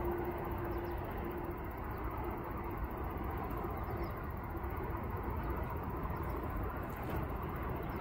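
Steady rushing outdoor noise with no distinct events. A faint low hum underneath fades out about four seconds in.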